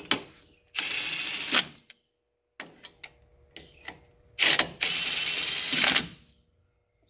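Cordless Milwaukee FUEL brushless impact wrench running lug nuts down onto a rear brake drum in two runs of about a second each. The second run is longer and opens with a louder burst. Light clicks of nuts and tool handling come between the runs.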